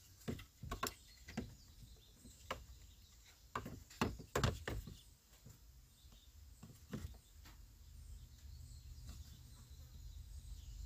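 Scattered sharp plastic clicks and taps from fingers working the door-release cables and their plastic clamp inside the door-handle recess of a 2007 Honda Ridgeline's front door. A cluster of knocks comes about four seconds in, over a low steady background rumble.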